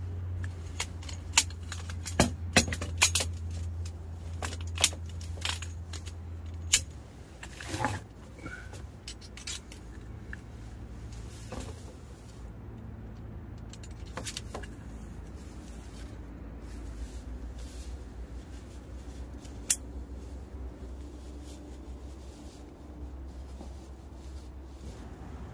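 Metal tent poles clicking and clinking as they are fitted into the apex of a two-pole tipi tent: a quick run of sharp clicks over the first several seconds, then a few scattered knocks. A steady low rumble runs underneath.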